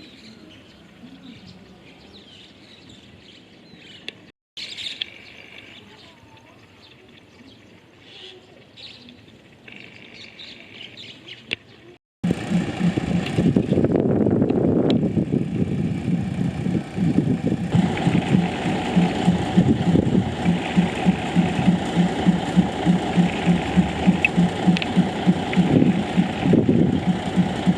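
Birds chirping over a quiet background. About twelve seconds in, after a sudden cut, a diesel train engine runs loudly with a steady rhythmic throb of about two to three pulses a second.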